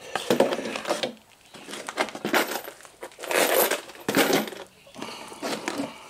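Metal bolts clinking and rustling as they are handled, in about five separate bursts.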